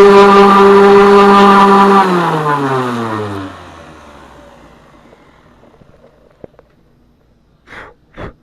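Electric palm sander running steadily, then switched off, its motor hum sliding down in pitch and fading as it spins to a stop. Near the end come two short soft sounds.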